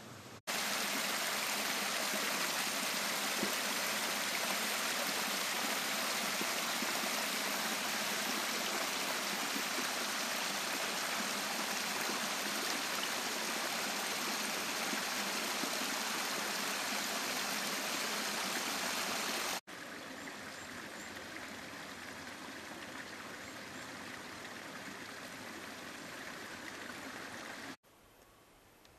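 Small forest brook running over its bed: a steady rushing noise. It cuts off abruptly about two-thirds of the way through, and a quieter, similar steady noise follows. That drops to a faint hush just before the end.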